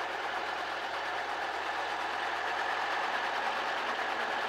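Robinson helicopter's piston engine running steadily just after start-up, with the main rotor turning slowly overhead.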